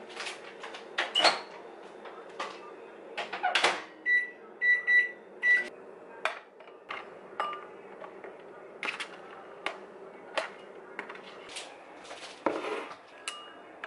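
Kitchen handling sounds: scattered knocks and clatters as a ceramic bowl and other dishes are set down and moved on a countertop, with four short electronic appliance beeps in quick succession about four seconds in.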